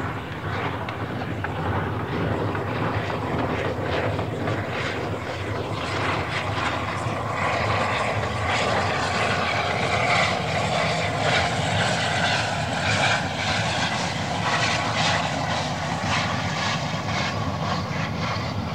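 Steam locomotive working hard under load on the line, its exhaust beats coming in a steady run over a continuous mechanical roar, growing louder over the first couple of seconds.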